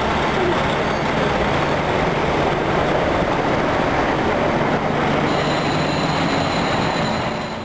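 KiHa 40 diesel railcars running past at close range: diesel engine running and wheels rolling on the rails, steady and loud throughout, with a faint high whine over it.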